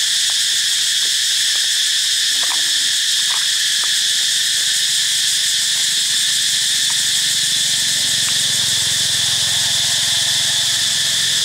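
Steady, high-pitched insect chorus shrilling without a break. A few faint short calls sound about two and a half and three and a half seconds in.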